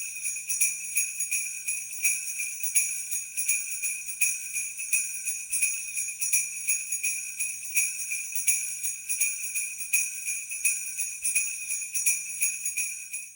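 Jingle bells shaken in a steady rhythm, with a strong shake about every two-thirds of a second.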